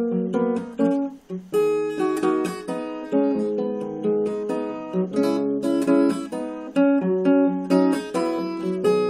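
Solo acoustic guitar with a capo, played fingerstyle: a plucked melody over bass notes, each note ringing and dying away, with a brief pause about a second in.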